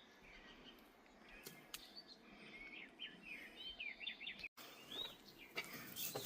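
Small birds chirping faintly in quick runs of short rising and falling calls.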